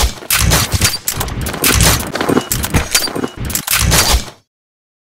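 Gunshot sound effects: a rapid string of sharp shots with heavy low thumps, cutting off suddenly about four seconds in.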